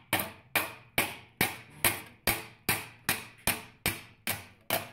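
Claw hammer striking a tuck in sheet metal over a vise, caving the tuck in to shrink the metal. Steady, evenly spaced blows, about two and a half a second, each with a brief metallic ring.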